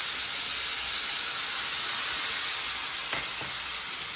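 Water poured into a hot kadhai of ghee, cumin and fried samak (barnyard millet) rice, sizzling and hissing steadily as it hits the hot fat, easing off a little toward the end.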